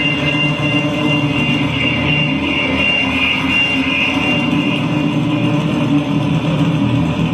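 Dense, steady industrial noise drone from a live electronic noise performance: a thin high tone held above a low, even layer of machine-like noise.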